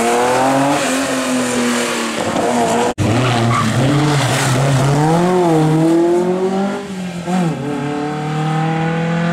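Historic rally car engines at high revs: a Porsche 914 accelerating away, then, after a sudden cut about three seconds in, an Alpine-Renault A310 sliding through a bend. Its revs rise and fall through gear changes before it pulls away up the road.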